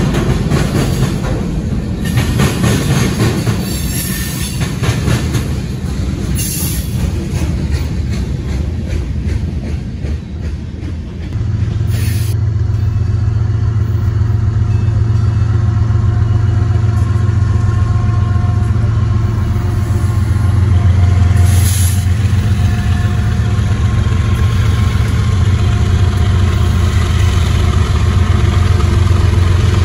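Freight cars rolling past with their wheels clattering over the rail joints. After a cut, the loud, steady low drone of approaching BNSF GE diesel locomotives, an ES44C4, an ES44DC and a C44-9W, with their engines running.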